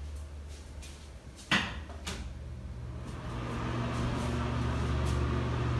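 Two sharp knocks about half a second apart, like a door or latch in a small tiled room, then a steady low hum that slowly grows louder.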